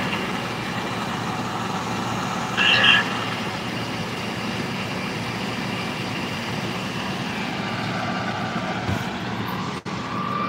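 Truck engine idling steadily, with a brief louder sound about three seconds in. A steady tone joins near the end.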